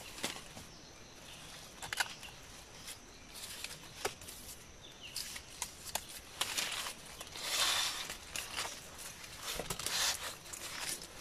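Sugar palm (Arenga pinnata) leaf strips rustling and crackling as they are threaded and pulled through a hand-woven leaf mat. Scattered sharp clicks run throughout, with louder swishing rustles in the second half.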